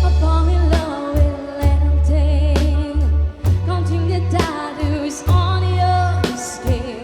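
A band playing a pop ballad, with a wavering sung melody over long held bass notes and regular drum hits.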